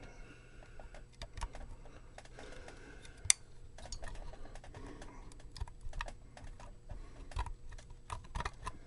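Scattered small clicks and taps of an Orange Micro Terror amplifier's circuit board and case parts being handled and pushed into place during reassembly, with one sharper click about three seconds in.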